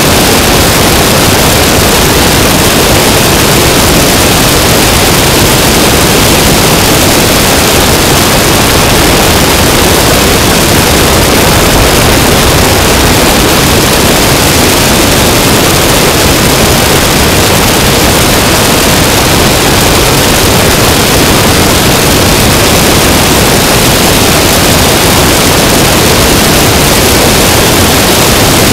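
Loud, steady rush of wind buffeting an action camera mounted outside an Aeronca Chief light plane in cruising flight, with the aircraft's engine noise mixed into the hiss and no distinct engine note.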